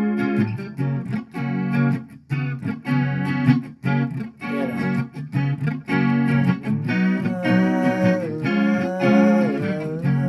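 Electric guitar played through chorus and slapback delay, rhythmic chords stopping and starting in short gaps. In the second half a higher melodic line bends up and down in pitch over the chords.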